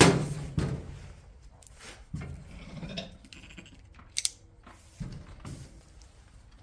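Irregular sharp clicks, knocks and scrapes, about half a dozen, the loudest right at the start: lambs being handled and fitted with electronic ear tags using a tag applicator.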